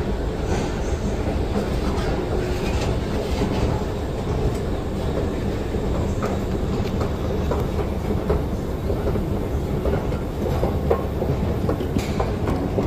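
Steady low rumble of an underground railway station, with scattered faint clicks.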